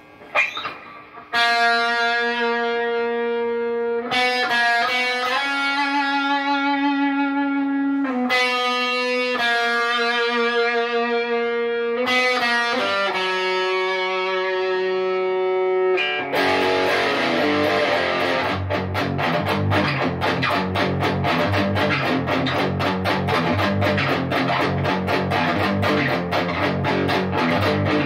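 Distorted electric guitar played through an amp. About a second in it starts a run of long held notes, changing pitch every few seconds; about halfway through it switches to fast, driving strummed chords.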